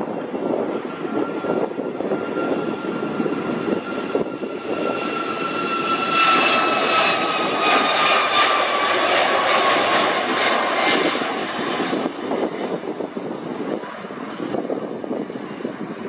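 Boeing 737 MAX 8's CFM LEAP-1B turbofans at takeoff thrust on the takeoff roll. A high engine whine grows loud about six seconds in, slides lower in pitch as the jet passes, then eases off.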